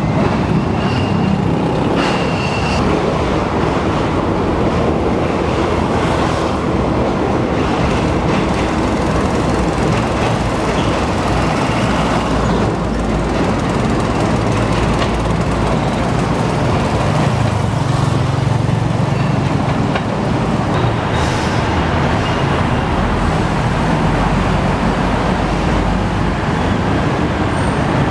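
Steady city road-traffic noise, with an INKA-built diesel multiple unit train approaching along the track, its low engine rumble building in the middle.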